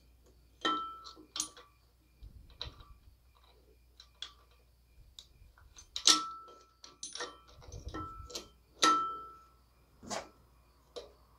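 Scattered metal clicks and clinks as a steel crow's-foot pulley puller and its bolts are handled and started by hand into a harmonic balancer. Several of the taps leave a short metallic ring; the loudest come about six and nine seconds in.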